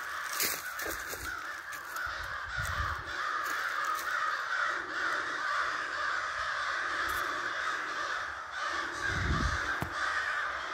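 Many crows cawing at once, a steady mass of overlapping harsh caws that does not let up, with a few soft thumps.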